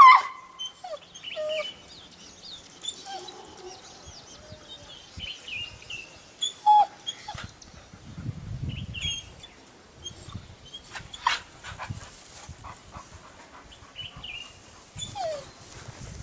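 Dogs barking and whining up at monkeys in the trees: one loud sharp bark at the start, then scattered yips and whines, with another loud bark about seven seconds in.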